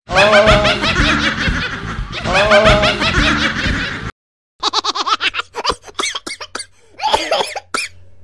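A woman laughing hard and high-pitched: one long stretch of laughter, a brief break about four seconds in, then a run of short, choppy cackles.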